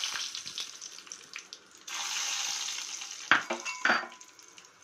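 Peanuts frying in hot oil with mustard seeds in a steel kadai: a steady sizzle that fades, then starts up again loudly about two seconds in. Near the end come two sharp, ringing metal clinks about half a second apart.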